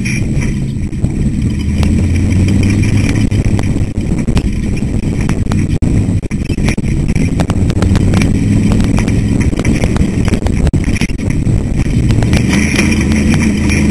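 Ultra4 race car's engine running hard at speed over a rough desert track, heard from on board, the pitch rising and falling with the throttle. Frequent short, sharp knocks and rattles run through it.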